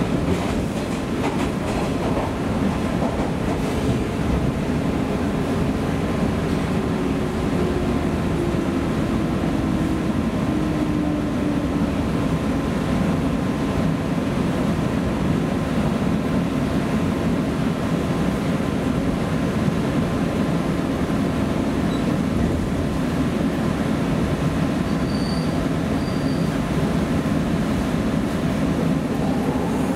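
Running noise inside the motor car of a JNR 115 series electric train, a steady loud rumble of wheels on rail with the traction motors and gearing. A whine from the motors drops in pitch about a third of the way through, a sign that the train is slowing.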